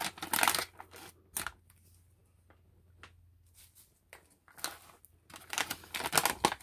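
Foil food pouch crinkling as it is handled and pulled open, in crackly bursts in the first second and again in the last two seconds, with a near-quiet stretch between.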